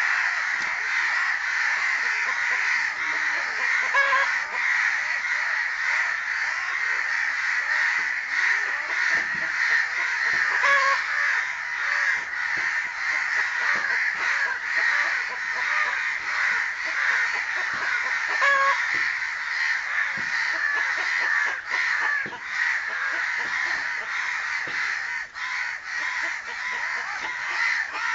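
Crows cawing, many harsh calls overlapping into a steady chorus, with a few clearer single calls standing out now and then.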